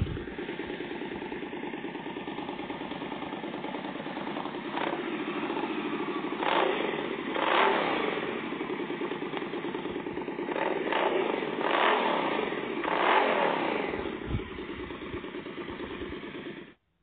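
Recorded sound of an Indian Scout Sixty's 999 cc V-twin idling, with several throttle blips in the middle that swell and fall back to idle. The sound stops abruptly near the end.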